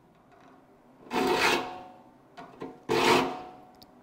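Saw file being pushed across the teeth of a crosscut hand saw to sharpen them: two rasping strokes, each with a faint ringing note, with a few light clicks between them.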